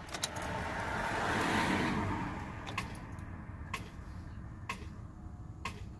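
A Chevrolet Impala with a weak battery failing to start: a short, feeble starter noise swells and fades over the first two seconds without the engine kicking over, then four sharp clicks come about a second apart. This is the sign of a battery without enough power to crank the engine.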